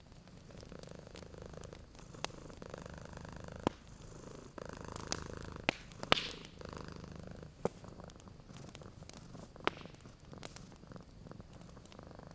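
Domestic cat purring steadily, with sharp crackles and pops from a wood fire scattered through it, the loudest about six seconds in.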